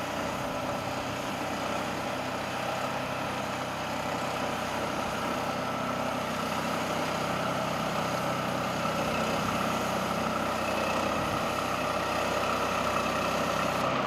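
Portable band sawmill cutting: its Honda gas engine runs steadily under load while the band blade saws through a squared log, a continuous even sound that builds slightly toward the end.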